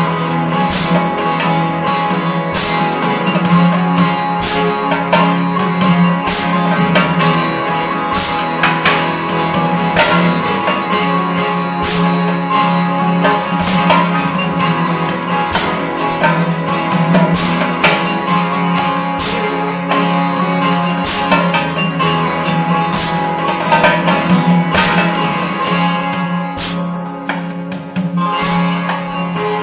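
Acoustic band playing an instrumental passage: a strummed steel-string acoustic guitar over a steady chordal bed, with hand percussion giving a bright, high accent about once a second.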